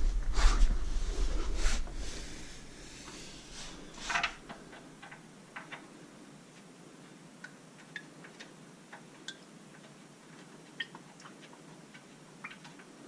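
Body and clothing shifting and bumping against the floor beneath a car, then a knock about four seconds in, followed by scattered light clicks of hands working a plastic fitting under the car.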